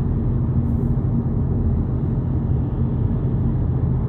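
Steady low rumble of road and engine noise inside the cabin of a 2022 VW Polo GTI cruising at about 70 km/h, with a faint constant hum over it.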